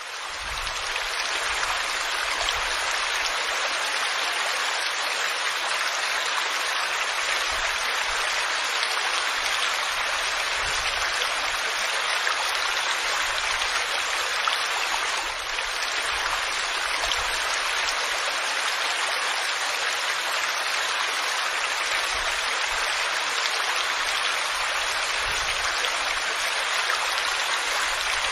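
Waterfall: a steady rush of falling water, swelling back to full level within the first second.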